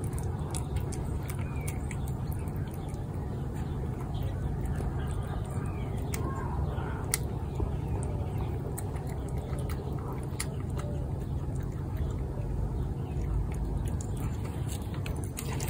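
A cat eating wet food from a plate, with scattered small clicks of chewing and licking over a steady low rumble.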